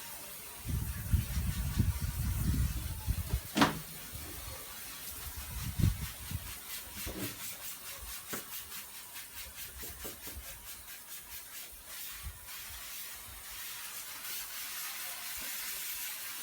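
Hand-pump pressure sprayer putting out a steady hissing spray of water onto wood. A low rumble of handling runs through the first few seconds, and a single knock comes about three and a half seconds in.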